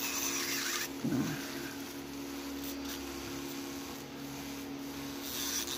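A nail file rasping in short strokes against an acrylic nail at the start and again near the end, over a steady machine hum.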